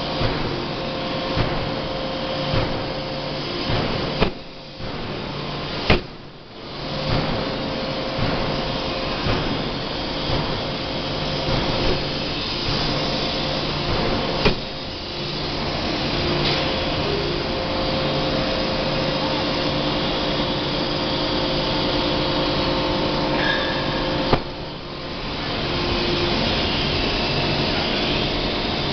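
Air-driven closed-die forging hammer working a red-hot billet: several sharp, heavy blows, the hardest about six and fourteen seconds in, over a steady machinery din with a low hum.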